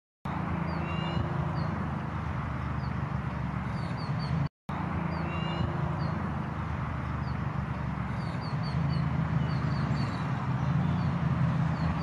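Birds chirping in many short, high, repeated notes over a steady low drone.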